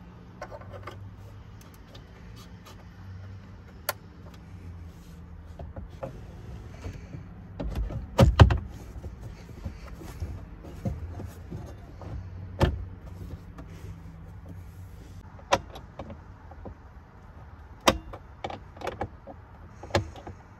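Hard plastic clicks and knocks as a 2022 Ford Super Duty's upper dash tray is set into the dashboard and pressed down, its front clips snapping into place. The loudest cluster of thumps comes about eight seconds in, followed by scattered single clicks.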